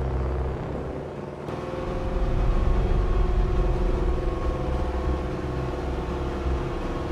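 Engine of a bomb-loading lift truck running steadily: a low rumble with a steady hum over it. It dips briefly about a second in, then runs on evenly.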